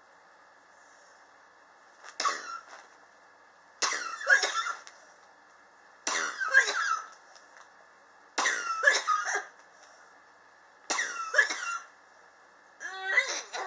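A person coughing in six short fits about two seconds apart, each of two or three coughs. It is a long-standing chronic cough that has lasted for years.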